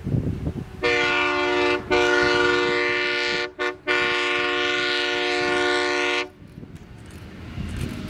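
Diesel freight locomotive's air horn sounding, starting about a second in and held for about five seconds, with a short break early on and a quick double break midway before it stops. A low rumble from the approaching train lies under and after it.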